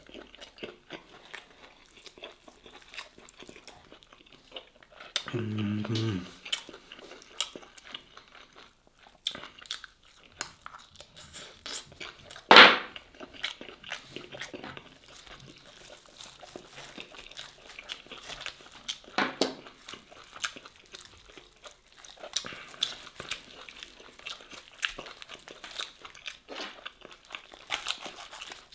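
Close-miked wet chewing, biting and lip-smacking of a person eating smoked barbecue beef short ribs, with many small mouth clicks. A short hummed voice sound comes about five seconds in, and one sharp, louder smack comes near the middle.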